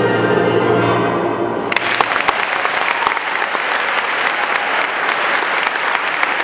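A wind orchestra with a solo Miraphone 1291 B♭ tuba holds its final chord, which cuts off about a second and a half in. An audience applauding, with many individual claps, takes over and is the loudest part.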